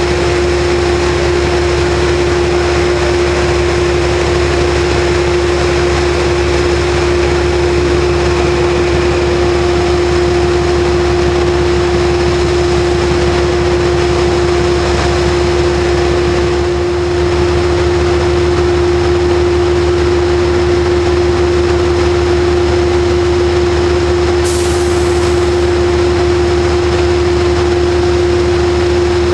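GE P32AC-DM diesel locomotive idling at close range: a loud, steady hum with a low drone. The low note shifts slightly about two-thirds of the way through, and a brief hiss of air comes near the end.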